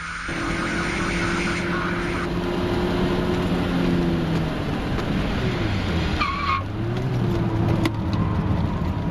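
Mk1 VW Golf Cabriolet's 1.8-litre four-cylinder engine heard from inside the cabin at speed on a wet track, over road noise. The engine holds a steady pitch, drops about halfway through as the driver lifts off, then pulls up again. There is a brief high squeal a little after six seconds in.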